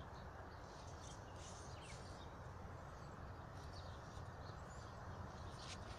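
Faint outdoor field ambience: a few scattered bird chirps over a steady low rumble.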